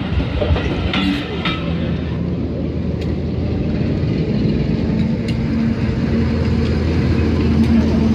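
Diesel shunting locomotive's engine running with a steady low drone, growing louder as it approaches. A few sharp knocks are heard in the first second and a half.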